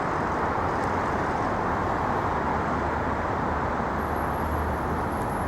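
Steady city road traffic: an even wash of vehicle and tyre noise with a low hum beneath.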